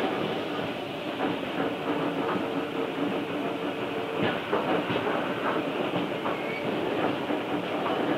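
Tobu 5050 series electric train running at a steady speed, heard from inside the car: the hum of its nose-suspended traction motors and gears, with knocks from wheels over rail joints, a few of them close together about halfway through. Its wheels carry flat spots from a slide under braking. The recording is distorted, made with a tape recorder's built-in microphone.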